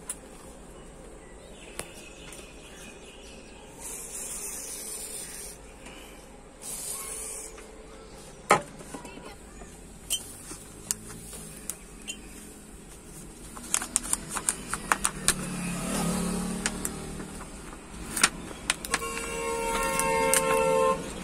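Handling noise from work on an opened smartphone: scattered clicks and taps of the phone body and battery, with a couple of short rustles, over a steady background hum. Near the end a steady pitched tone with overtones comes in.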